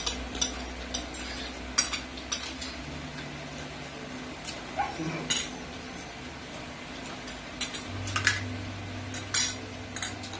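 Plates and a serving dish clinking and tapping at irregular moments as people eat at the table, with a faint steady low hum underneath.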